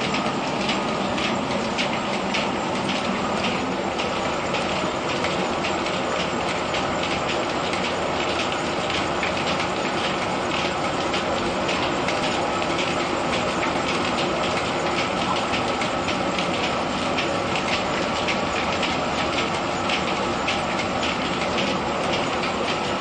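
Threshing machine in a grain mill running steadily, a continuous mechanical drone with a dense, fast rattling over it.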